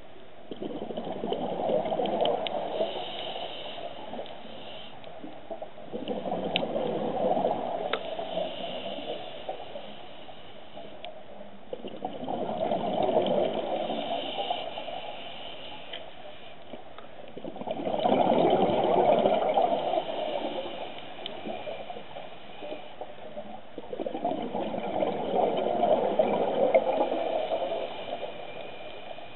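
Underwater sound of a scuba diver breathing through a regulator: five long rushes of exhaled bubbles, about one every six seconds, with quieter stretches between.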